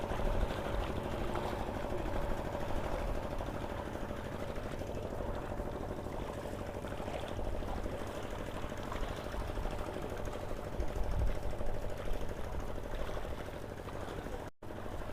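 An engine running steadily at an even speed, with a fast, even chugging. It cuts off abruptly near the end.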